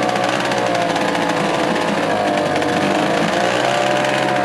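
Restored British Seagull two-stroke outboard motor running in a bin of water for a test run, its speed wavering a little up and down.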